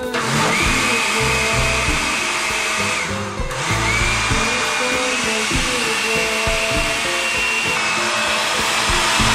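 Electric countertop blender running, blending a thick ice-cream and chocolate milkshake, with a steady high motor whine over its whirring. About three seconds in it cuts out briefly, then starts up again, the whine rising as it comes up to speed, and runs on.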